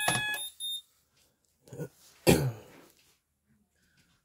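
Moose Z900 alarm keypad sounding a steady high beep that stops about half a second in. A person then coughs twice, the second time louder, about two seconds in.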